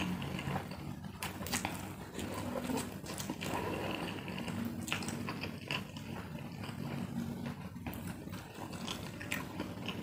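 Close-up eating sounds of a person slurping and chewing instant fried noodles: wet mouth smacks and slurps with scattered short clicks.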